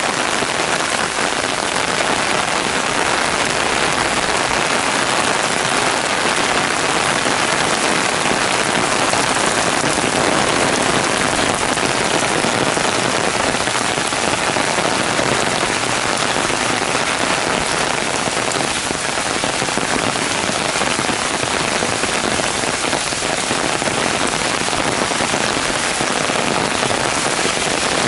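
Heavy downpour: dense, steady rain hitting a wet paved path, grass and trees.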